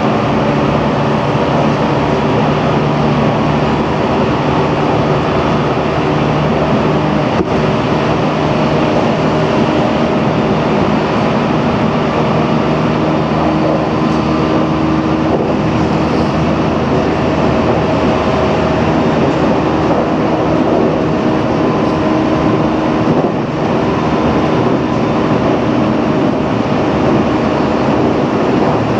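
Running sound of a JR Central 313 series electric train heard inside its front car: a steady rumble of wheels on rail with several steady motor and gear tones.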